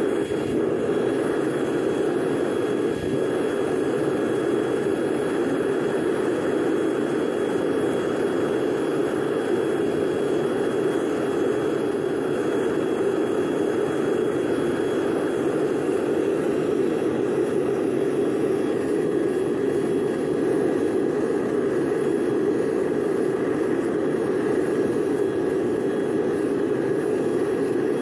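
Home-foundry melting furnace's propane and waste-oil burner running with a steady, even rushing noise that does not change.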